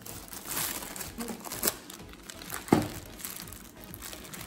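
Clear plastic film crinkling as hands handle it, in a run of small crackles, with one sharp click a little under three seconds in that is the loudest sound.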